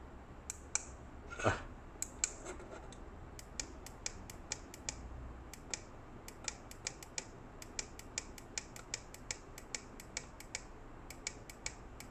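Small buttons on a handheld chronograph clicking, pressed over and over at a few a second to scroll back through its list of shot velocity readings. There is one louder, longer handling noise about a second and a half in.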